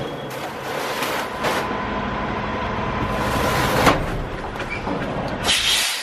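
Semi truck engine running close by, under a steady rushing noise that swells briefly a few times.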